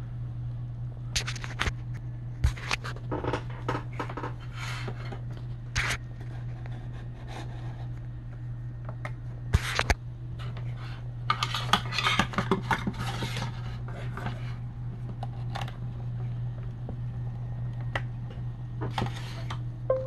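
Hands working on an opened laptop's insides to swap out its hard drive: irregular clicks, scratches and scrapes of small metal and plastic parts and a screwdriver, busiest about halfway through, over a steady low hum.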